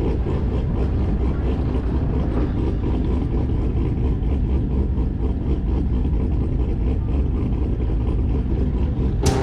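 Steady low rumble of a car being driven, engine and road noise running evenly without clear revving.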